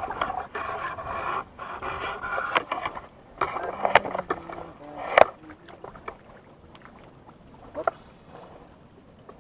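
A few sharp knocks on a wooden outrigger canoe while a nylon fishing line is being handled. The loudest comes about five seconds in, and it is mostly quiet after that.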